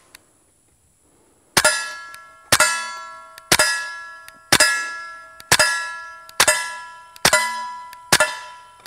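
Suppressed KelTec P17 .22 LR pistol firing American Eagle suppressor 45-grain round-nose ammunition at about one shot a second, eight times. Each quiet shot is followed by a steel target's clear ringing clang that fades slowly before the next hit.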